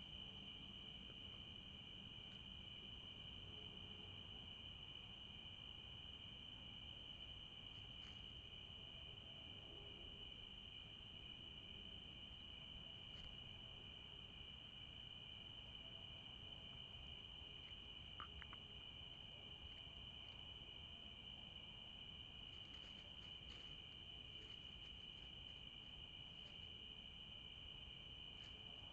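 Steady chorus of night insects such as crickets, a continuous high trill, with a few faint ticks scattered through it.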